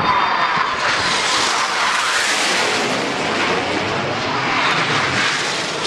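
BAE Hawk T1 jets passing overhead in a display pass: loud, continuous jet engine noise that swells about two seconds in and again near the end.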